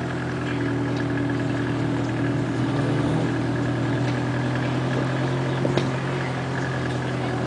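Car engine running steadily at low revs while the car rolls slowly, heard from inside the cabin as an even hum.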